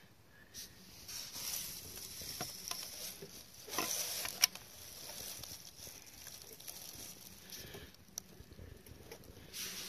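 Faint rustling and crinkling of packaging being handled, with a single sharp click about four and a half seconds in.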